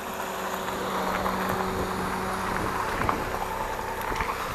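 Cross bike rolling along a gravel path, tyres on the grit and wind on the microphone, with a few sharp rattling clicks from the bike. A small car's engine runs close by for the first few seconds, then fades out.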